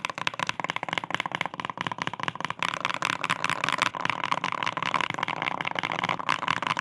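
Fast continuous typing on a custom Wooting 60 keyboard with magnetic 'Air' switches and foam dampening: dense runs of key clacks. The typing sound is rather muffled.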